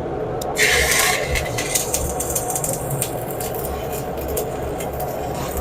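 Steady drone of welding-shop machinery, with a loud hiss about a second in and scattered clicks and crackles.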